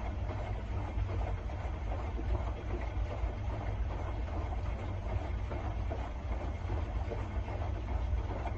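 Steady low rumble with an even hiss, like a machine running, with no distinct knocks or rhythm.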